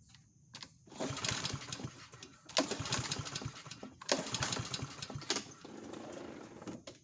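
Small lawnmower engine being cranked over about four times, each pull a sharp surge that fades within about a second and a half, turning over without starting. The tester shows no good spark, and the owner puts it down most likely to a spark plug that needs changing.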